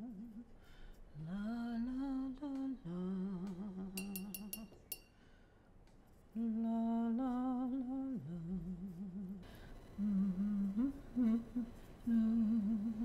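A woman humming a slow, wordless tune in phrases of held, wavering notes. A brief run of light clicks with a thin ring comes about four seconds in.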